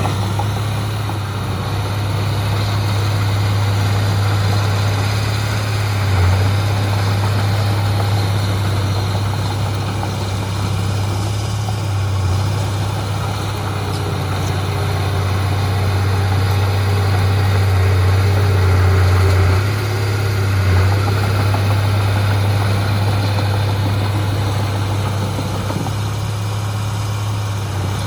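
Heavy diesel engine of earthmoving machinery running steadily with a deep low hum, swelling briefly a few times.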